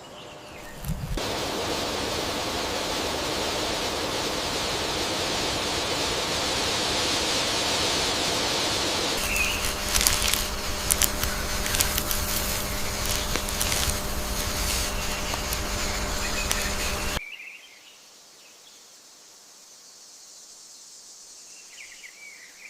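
Steady outdoor ambience: an even hiss of noise with a few faint bird chirps and scattered clicks. A low steady hum joins it partway through. About two-thirds of the way in it cuts abruptly to a much quieter background with faint chirps.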